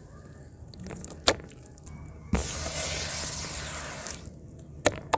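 Gloved hands sloshing in a bucket of watery mud slurry. A sharp click comes about a second in, then a loud burst of splashing and swishing lasts from about two and a half to four seconds in, and two more sharp clicks follow near the end.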